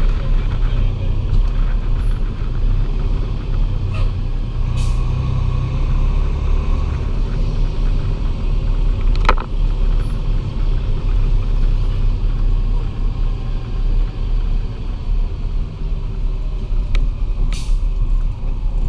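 Fire engine driving along, its diesel engine and road rumble heard from a camera on the outside of the cab, steady and loud. A few short sharp clicks or hisses stand out, one about four seconds in, one near the middle and one near the end.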